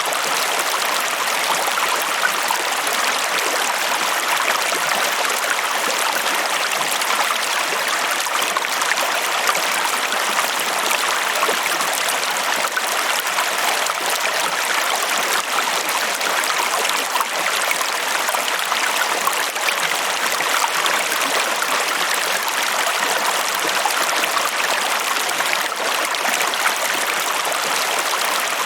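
Water flowing steadily, an even rush of running water with fine splashing and no pauses.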